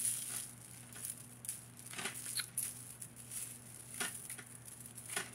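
Scattered light clicks and rustles of a multi-strand necklace of acrylic beads and metal chains being handled.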